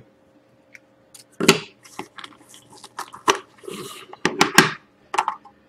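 Handling a cardboard trading-card box and a hard clear plastic card holder on a wooden table: a string of short clicks, knocks and brief rustles as the holder is lifted out of its foam insert.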